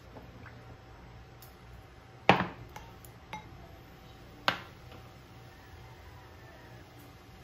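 Two sharp kitchen knocks about two seconds apart, each with a brief ring after it, the first the louder; the second comes as a cleaver cuts through a boiled egg onto a wooden cutting board.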